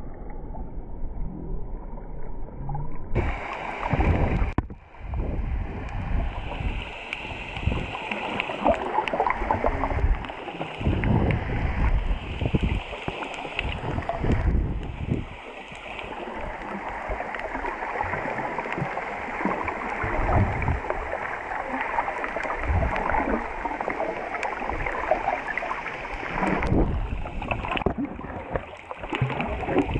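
Muffled water sloshing and gurgling against a camera held just at and under the sea surface, with uneven low rumbling surges; the tone changes abruptly a few times.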